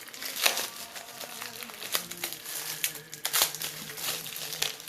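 Packaging being handled and unwrapped by hand, with irregular crinkling and crackling and sharp little ticks throughout.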